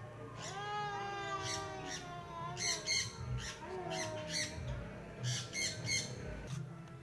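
Birds calling: two drawn-out, wavering calls, then a run of short, harsh squawks.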